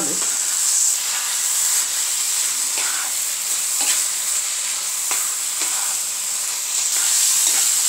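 Taro-leaf greens sizzling in a non-stick frying pan as a spatula stirs and mashes them, scraping across the pan about once a second, while the last of the cooking water is cooked off.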